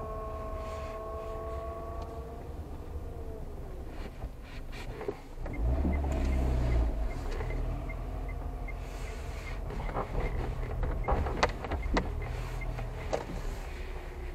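A car driving slowly, heard from inside: a low engine and tyre rumble that swells for about a second and a half about five seconds in. A faint steady whine fades out in the first couple of seconds. A light, even ticking of two or three a second runs for several seconds after that, and a few sharp knocks come near the end.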